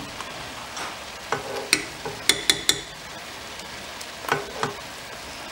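Metal spoon and whisk clinking against a saucepan of thick barbecue sauce: a couple of sharp taps a bit over a second in, then three quick ringing taps around two and a half seconds in and two more near the end. Under them runs a steady frying sizzle from ground beef browning on the stove.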